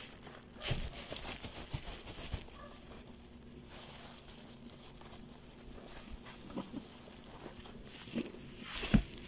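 Thin plastic bag packed with ground ginger powder crinkling and rustling in short spells as it is lifted and its top gathered, with a sharper snap near the end.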